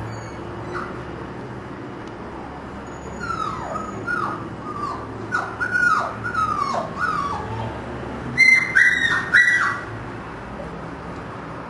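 Siberian husky puppies whimpering: a run of short, falling whines starts about three seconds in, followed by three louder, higher yelps near the end.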